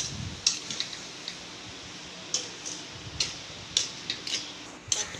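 Steel spoon stirring sugar into cooked semolina halwa in a nonstick pan: light, irregular clicks and scrapes of metal against the pan, several a second at times.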